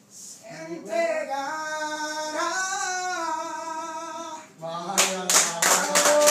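A person singing a long, drawn-out note whose pitch wavers and bends in a small room. About five seconds in, several people break into clapping.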